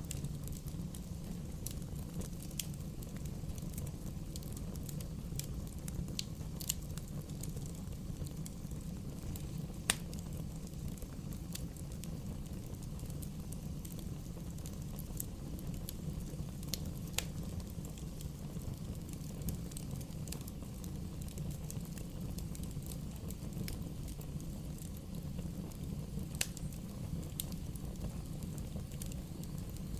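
Bonfire burning with a steady low rumble and scattered sharp crackles and pops, a few of them standing out, about ten, seventeen and twenty-six seconds in.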